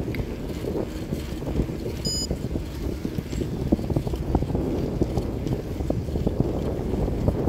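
Wind buffeting the microphone of a handlebar-mounted camera on a moving bicycle, with frequent small rattles and knocks from the bike rolling over asphalt.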